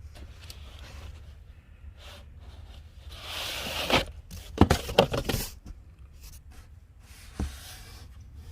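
Firework packaging and tubes being handled: rustling of cardboard and plastic, a brief scraping swell, then a few sharp knocks and one dull knock near the end.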